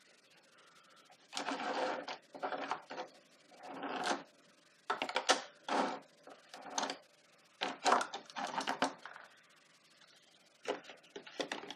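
Plastic lipstick and lip gloss tubes clicking and clattering against a clear acrylic drawer organizer as they are picked out by hand, in several short bursts with pauses between.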